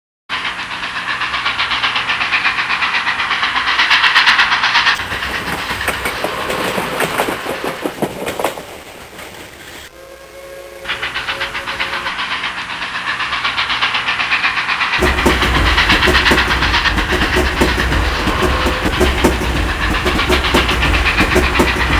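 Train running on the rails, its wheels clicking rapidly over rail joints under a steady hiss, in several spliced recordings with abrupt cuts between them. It goes quieter about halfway, then a heavier, deeper rumble comes in about two-thirds of the way through.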